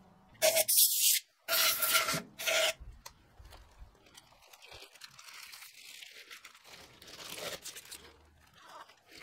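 Three short, loud hissing blasts of compressed air blowing out the grinder's steel quill body, then a quieter stretch of a microfiber cloth rubbing on the metal tube and a plastic bag rustling.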